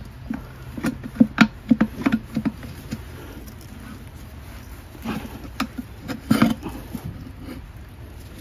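Irregular short knocks and thuds in two clusters, one about a second in and another about five seconds in. They come from a flat-head screwdriver and hammer working a rubber ATV tire bead onto its rim.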